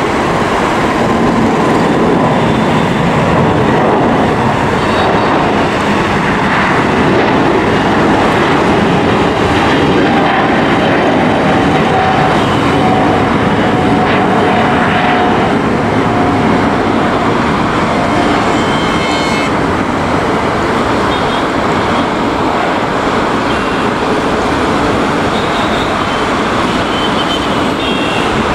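Jet engines of a Boeing 747-8F freighter, four GEnx turbofans, at takeoff climb power: a loud, steady roar as the aircraft climbs out. A faint whine in it drops slightly in pitch partway through.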